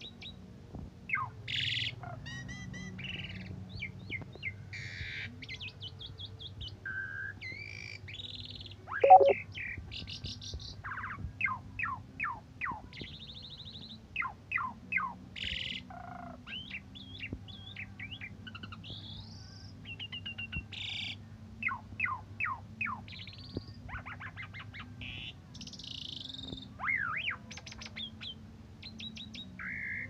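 Caged Asian pied starling (jalak suren) singing a long, varied song of whistles, chirps and quick rattling runs of notes, with one loud sharp sound about nine seconds in.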